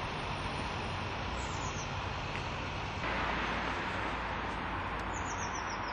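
Street ambience: steady traffic noise from a city road, slightly louder from about halfway, with two short runs of high chirps.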